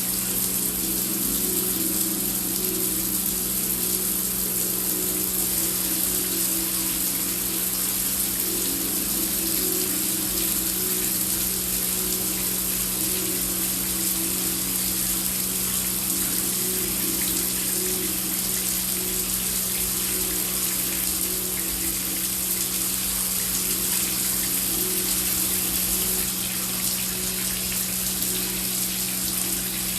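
Heavy rain falling steadily as a dense, even hiss, with a low steady drone underneath.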